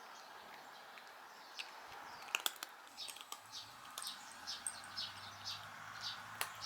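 Small birds chirping in short high calls, repeating about two or three times a second from about halfway in, with a few sharp clicks just before.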